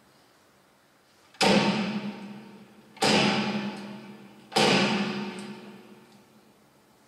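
A percussion instrument struck three times at an even pace, about a second and a half apart, each hit ringing out and fading before the next.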